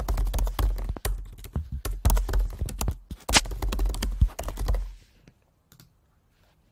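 Fast typing on a computer keyboard: a dense run of key clicks with dull thumps that stops about five seconds in, followed by a couple of single clicks.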